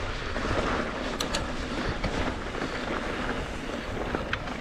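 Wind buffeting a GoPro's microphone and the tyres of a Trek Slash 7 mountain bike rolling fast over dirt singletrack, with a few sharp clicks and rattles from the bike: two close together about a second in and one near the end.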